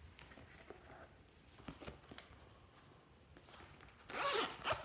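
Zipper of a small rainbow-shaped pouch being pulled open in one quick rasp about four seconds in, after a few faint handling clicks.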